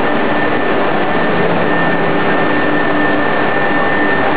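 CNC panel boring-and-sawing machine running in a workshop: loud, steady machine noise with a constant high whine.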